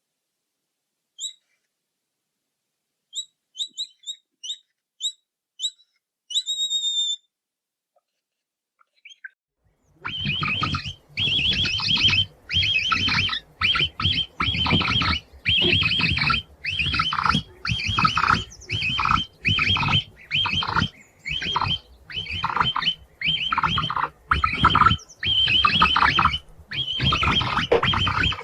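Capybara calls: a few short, high whistling chirps, singly and in a quick series, then from about a third of the way in a long run of loud, rough, pulsing calls repeated about once a second.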